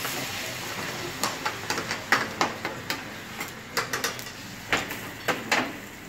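Metal utensils tapping and clinking against the metal künefe pan in irregular short clicks, after a steady hiss from the spirit-fed flames fades in the first second.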